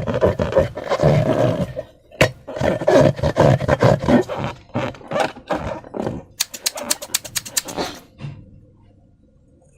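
Slime being squished and stretched by hand: dense wet crackling and squelching, with a quick run of small pops over the last third before it goes quiet near the end.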